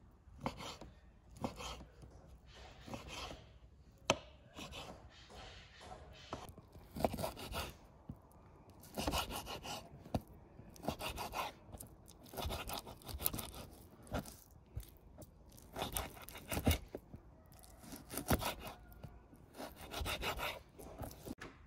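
Kitchen knife slicing through raw beef on a wooden cutting board in repeated sawing strokes, the blade now and then knocking sharply on the board.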